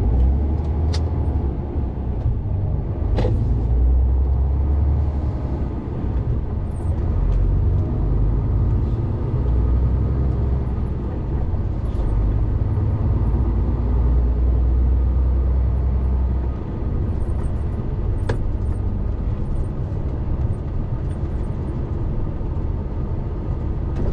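Articulated HGV's diesel engine and road noise while driving: a deep, steady rumble that swells and eases several times, with a few faint clicks.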